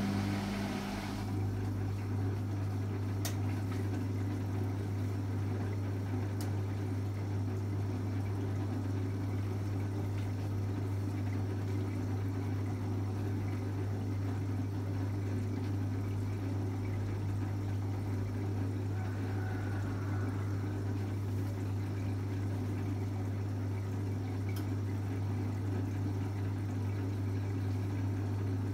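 Beko BKY 2317 B washing machine's drain pump switching on and running with a steady mains hum, pumping out the wash water.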